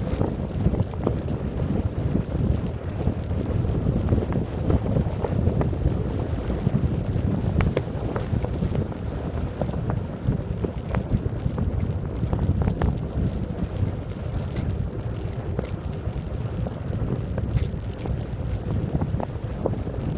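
Wind rushing over the microphone and tyre rumble on asphalt from a recumbent bicycle riding at speed, with a few light ticks from road bumps.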